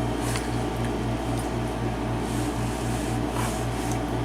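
Steady low background hum that throbs about five times a second, like a fan or air-conditioning unit running, with a few faint light ticks and scrapes over it.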